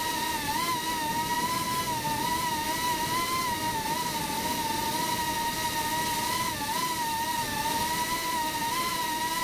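FPV quadcopter's electric motors and propellers whining at a steady high pitch that wavers slightly up and down with throttle.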